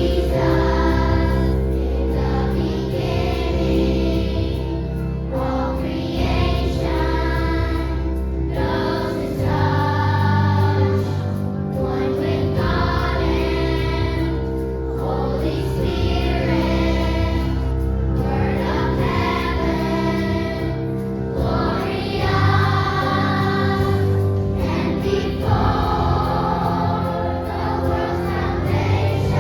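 A choir singing in phrases of a few seconds each, over sustained low accompaniment chords.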